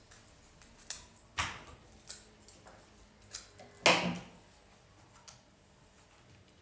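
Floral secateurs snipping gerbera stems: about six separate sharp clicks, the loudest a clack just before four seconds in.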